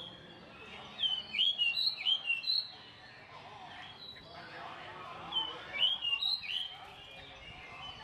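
A songbird singing two short phrases of quick, high whistled notes, each note sweeping sharply in pitch, about a second in and again about five seconds in.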